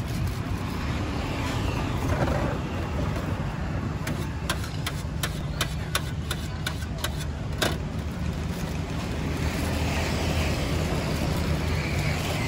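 A knife chopping fruit on a cutting board: a quick run of about a dozen sharp strokes around the middle, the last one the loudest. Plastic bags rustle near the start and the end, over a steady low rumble of street traffic.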